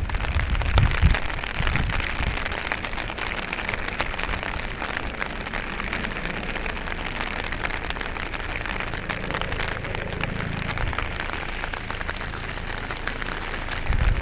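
Heavy rain falling steadily, a dense patter of drops, with low rumbles in the first couple of seconds.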